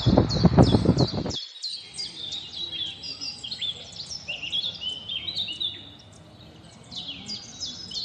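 Birds chirping, many short falling chirps overlapping. For the first second and a half a loud low rumbling noise lies under them, then cuts off abruptly, leaving the chirping alone.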